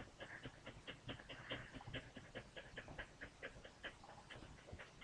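Dog panting quickly and faintly, a steady run of short breaths at about five a second.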